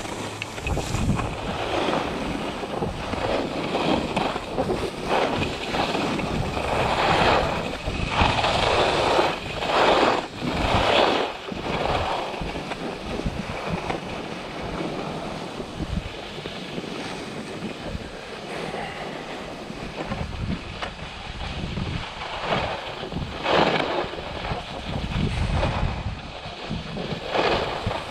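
Wind buffeting the microphone in rising and falling surges, a rushing noise with no steady tone.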